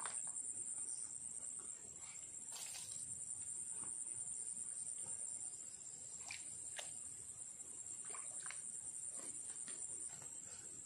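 Insects chirring in a steady high-pitched drone, with a few faint clicks and knocks scattered through.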